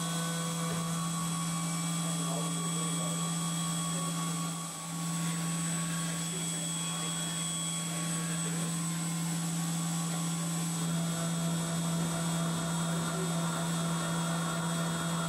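Syil X7 CNC milling machine running a contour cut in aluminium under flood coolant: a steady hum with a high whine from the spindle and coolant spray, dipping briefly about five seconds in.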